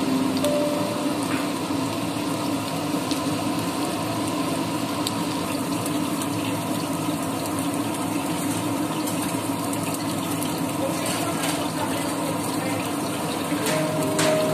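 Dried anchovies (dilis) frying in hot oil in a pan, a steady sizzling hiss.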